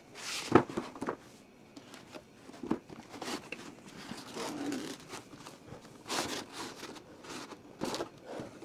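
Cardboard box and packaging handled and slid over a wooden tabletop: scattered scraping swishes and light knocks, the sharpest about half a second in.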